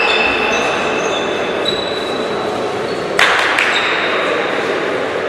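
Reverberant sports-hall noise with shoes squeaking on the court floor, and a volleyball hitting the floor once about three seconds in.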